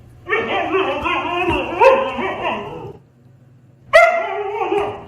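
Dog vocalizing in long, wavering pitched whines and barks: one bout of nearly three seconds, then a second starting abruptly about four seconds in.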